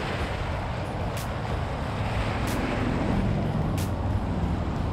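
Steady outdoor noise of wind and waves washing on shoreline rocks, with a low hum like distant road traffic underneath. A faint click comes about every second and a quarter.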